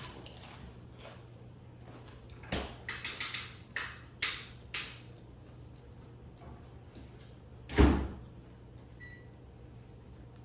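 Handling noises: a quick run of sharp crackles and clicks, then one loud thump, over a steady low hum, with a faint short beep near the end.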